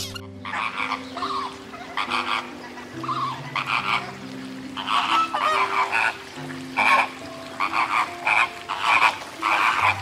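Flamingo calling in a series of short honks, about a dozen in quick, irregular succession, over a soft background music track.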